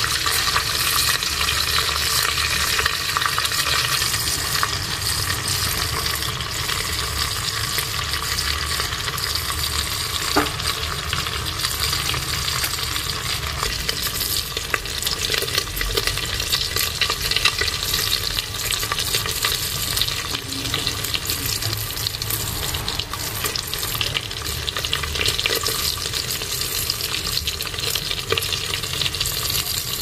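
Pieces of pork skin frying in hot fat in a metal pot: a steady sizzle full of small crackles and pops.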